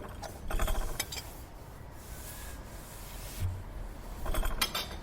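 A knife rasping across bread or toast at the breakfast table, two short scraping strokes, one shortly after the start and one near the end.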